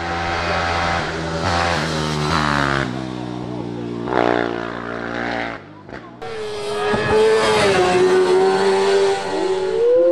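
A racing motorcycle engine revving hard and changing gear, its pitch climbing and dropping several times as the bike takes a bend. After a break just before the middle, an engine is held at high revs at a steady pitch, rising again near the end.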